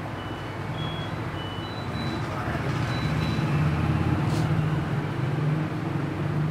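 Low engine rumble of a passing motor vehicle, swelling to its loudest around the middle, with a run of short high beeps of stepping pitch in the first half.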